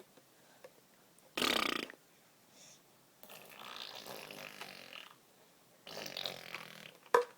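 Baby making raspy, burp-like throaty noises in three bursts: a short loud one about a second and a half in, a longer softer one, and another near the end. A brief sharp click just before the end.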